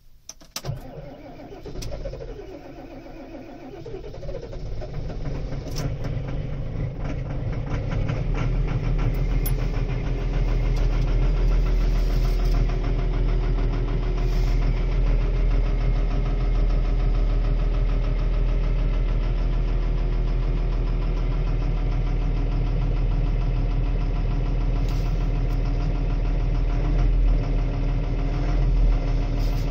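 Fendt 930 Vario tractor's six-cylinder diesel engine cold-starting: it cranks briefly and catches about half a second in. It then runs with a diesel clatter that grows louder over the next ten seconds and settles into a steady idle at about 810 rpm.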